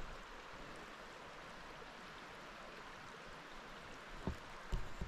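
Steady rushing of creek water, with a few soft thumps near the end.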